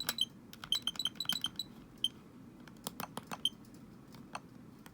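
Irregular short clicks with brief high blips, some in quick runs of several a second: Joy-Con buttons being pressed and the Nintendo Switch's menu and test-screen sounds answering them.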